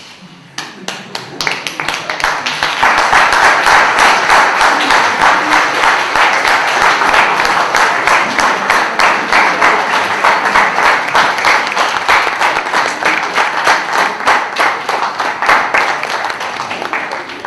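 Large audience applauding: many hands clapping together, building up over the first couple of seconds, holding steady, and dying away near the end.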